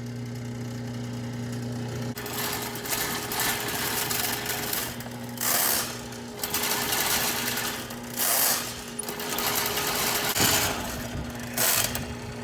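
Electric drain-cleaning machine running, its motor humming steadily while the spinning cable rattles, clearing a drain stoppage. Louder surges come three times, about five and a half, eight and eleven and a half seconds in.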